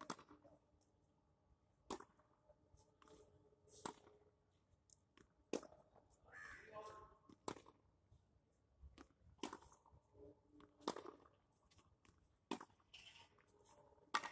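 A tennis ball being hit against a practice wall: sharp pops of racket strikes and the ball hitting the wall, a loud one about every two seconds with fainter ticks between.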